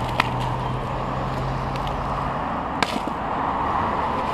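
Steady road-traffic noise, with a vehicle's engine hum that drops away about two and a half seconds in. Two sharp clicks, one right at the start and one near the three-second mark.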